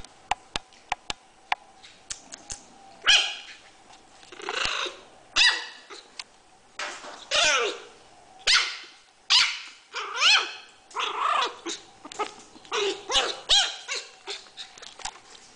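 Six-week-old puppy barking in short, high-pitched barks, about a dozen of them starting about three seconds in. A few sharp clicks come before the barks.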